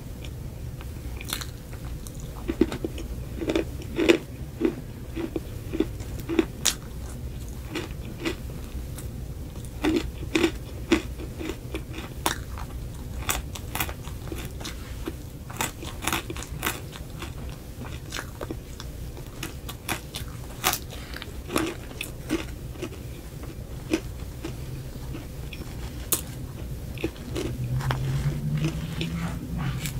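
Close-miked mouth sounds of eating cupcakes topped with frosting and crunchy cereal rings: irregular crisp crunches and bites with wet chewing between them. A low rising hum comes near the end.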